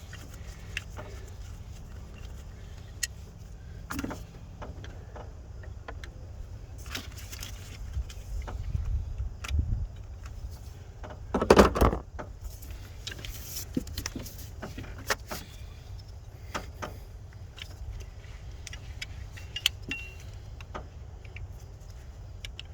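Scattered light metallic clicks and clinks of hand tools and small parts being handled at the distributor of a truck's V8 engine, with one louder knock and rattle about halfway through.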